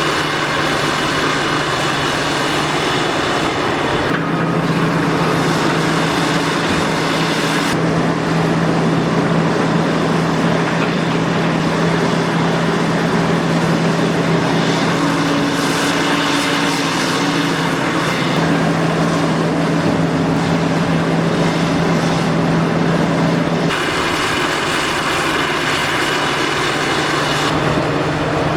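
Heavy machinery's diesel engine running steadily under load with a constant low hum. The sound changes abruptly several times, as between separate clips.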